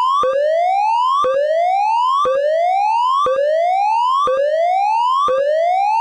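Electronic fire alarm tone: a tone rising in pitch over about a second, then jumping back down with a brief click, repeating steadily about once a second.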